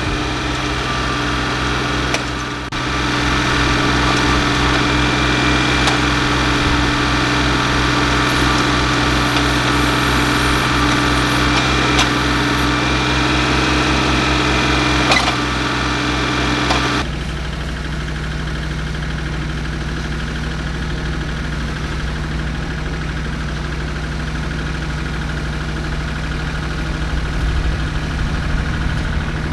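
Engine running steadily, with a few sharp clicks midway. About two-thirds of the way through it changes to a quieter, steady running at a different pitch.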